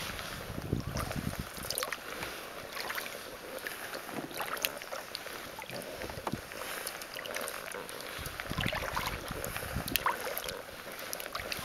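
Kayak paddle strokes in calm water: the blades dipping and dripping with small splashes and clicks, and now and then a gust of wind on the microphone.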